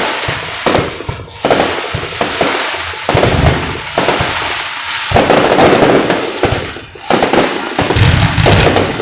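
Fireworks display: shells bursting one after another, about one loud bang a second, each trailed by dense crackling.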